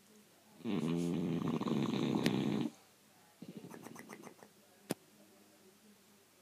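Bulldog snoring while asleep: one loud, fluttering snore about two seconds long, a quieter breath after it, and a single sharp click near the end.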